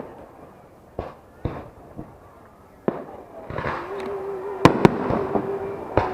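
Fireworks display. Single shell bursts boom about half a second to a second apart, then past the middle a denser run of crackling bursts builds, with two sharp, loud bangs in quick succession and another near the end.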